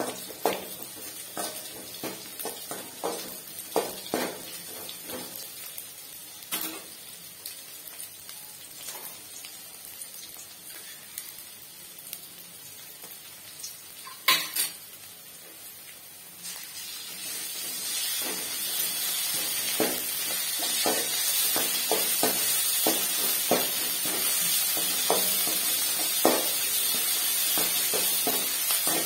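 Sliced onions and curry leaves frying in oil in a metal kadai, with a perforated metal skimmer scraping and knocking against the pan as they are stirred. A sharp clink about halfway through, then the sizzling gets much louder and busier as ginger-garlic paste is stirred into the hot oil.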